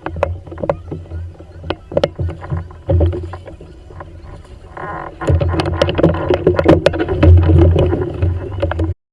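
Kayak on the water: repeated knocks and clicks against the hull over a steady low hum, getting louder and busier about five seconds in, then cutting off suddenly near the end.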